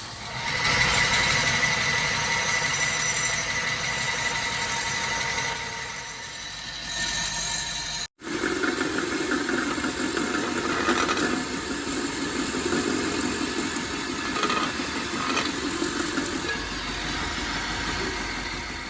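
Homemade belt grinder driven by an old electric motor, running. The sound breaks off abruptly about eight seconds in and resumes lower in pitch.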